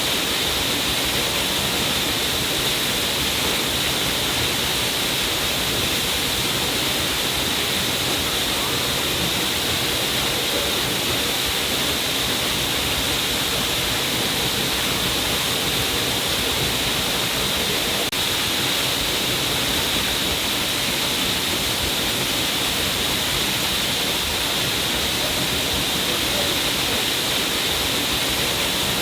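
Water streaming down a cliff face: a steady, unbroken rush of falling water, brightest in its upper hiss.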